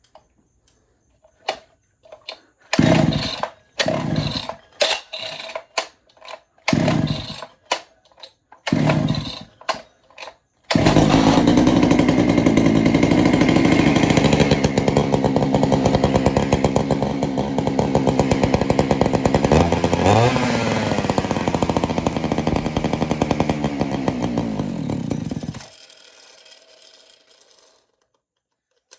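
A vintage Poulan two-stroke chainsaw being pull-started. Several short pulls on the starter cord come first, then about ten seconds in the engine catches and runs steadily for about fifteen seconds. Its pitch dips briefly and recovers, and then it is shut off and winds down.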